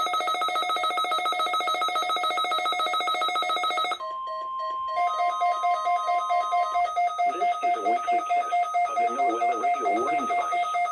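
Electronic emergency alert tone beeping rapidly, several pulses a second. About four seconds in it breaks off and a single steady tone sounds for a few seconds, then the beeping resumes with an announcer's voice starting under it about seven seconds in.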